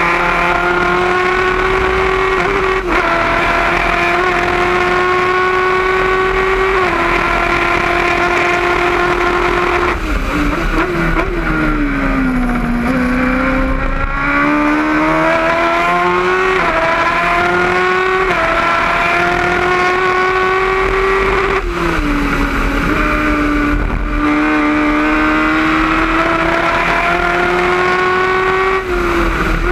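Engine of a Gloria C8F single-seater racing car at speed, heard from the cockpit: the pitch climbs steadily and drops sharply at each gear change. About ten seconds in it falls for a couple of seconds under braking, then climbs again through the gears.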